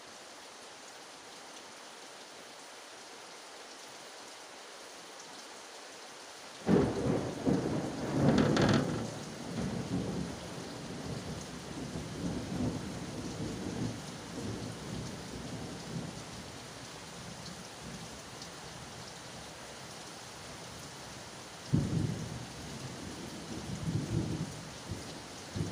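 Steady rain hiss, then about seven seconds in a sudden, loud thunderclap that crackles and rumbles on for several seconds. A second sharp crack of thunder comes near the end, followed by more rumbling.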